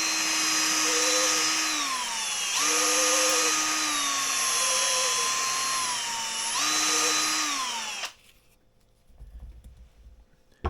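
Electric drill spinning a reamer inside a fishing-rod handle's bore to open it out to fit the blank. The motor whine dips in pitch and picks back up a few times, then winds down and stops about eight seconds in.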